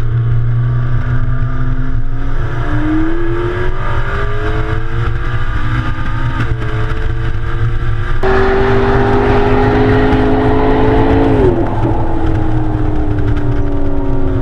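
Sports car engine at speed on a track, its note climbing slowly, dropping sharply at a gearshift about six seconds in, climbing again, then falling off near the end as the car slows, over a steady low rumble of road and wind noise.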